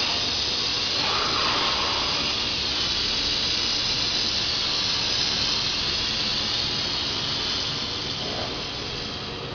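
A steady machine hiss, like air rushing, that eases off slightly near the end.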